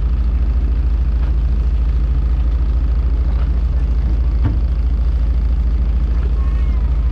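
Fishing boat's engine running steadily, a loud low throb with an even pulse, with one short knock about halfway through.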